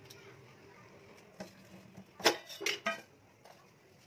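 A steel ladle clinking against a kadhai: a light tap about a second and a half in, then three sharp, ringing metal strikes in quick succession a little past two seconds in.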